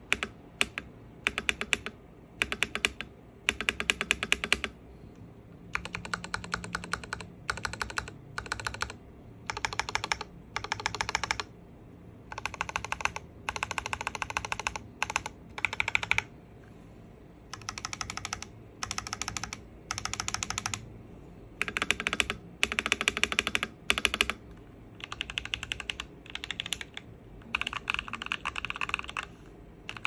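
Typing on a 1st Player Uni-Q mechanical keyboard fitted with Akko CS Lavender Purple V2 tactile switches lubed with Krytox 205g0, with foam dampeners and a tape mod. Rapid keystrokes come in short bursts of about a second, separated by brief pauses.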